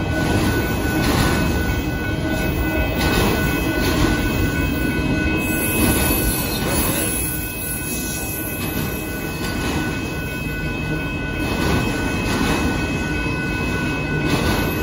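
Union Pacific freight train of autorack car carriers rolling past at speed: a steady rumble of wheels on rail with repeated clacks, and a steady high-pitched tone over it.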